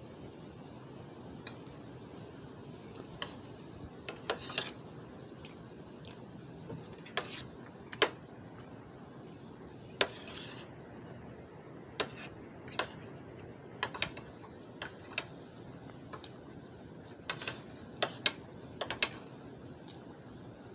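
Metal fork clinking and scraping against a dish of food while someone eats: irregular sharp clicks, a few clustered in quick pairs, over a steady background hiss.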